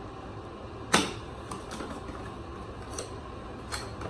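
A small cardboard carton being opened by hand: a sharp snap of the card about a second in, then a couple of lighter clicks and faint rustling of card and paper.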